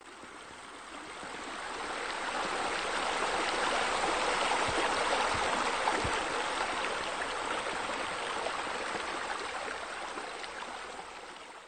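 Running water, a steady rushing and splashing like a stream or water feature, swelling up over the first few seconds and fading down near the end.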